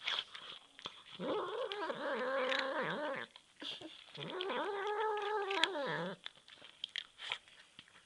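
Hungry house cat yowling: two long, drawn-out meows of about two seconds each, followed by a few light clicks.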